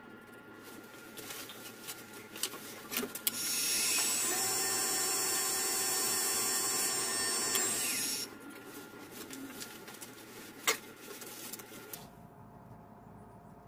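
Handful of wood shavings pressed against a cherry-wood goblet spinning on a wood lathe, burnishing the finish: a loud steady rubbing hiss from about three to eight seconds in, over the lathe's quieter running. A sharp click near the end.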